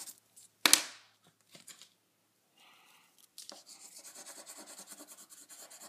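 Watercolor crayon scribbling on printer paper in quick, even back-and-forth strokes, starting about halfway through. A single sharp tap comes about a second in and is the loudest sound.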